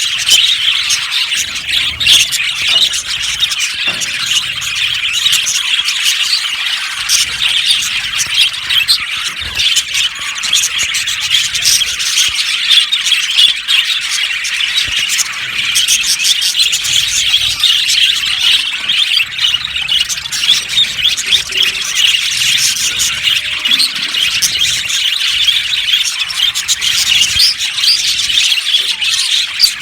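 A flock of budgerigars chirping and chattering continuously, many high, overlapping calls at once.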